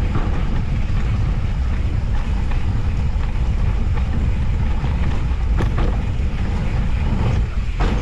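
Steady low wind rumble on the microphone with rolling trail noise from an off-road handcycle going downhill, broken by a few sharp clicks or knocks.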